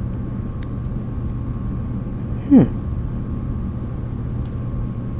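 Steady low electrical hum of the room background, with a few faint ticks as fingers work the thin wire. About halfway there is a brief falling vocal 'hmm'.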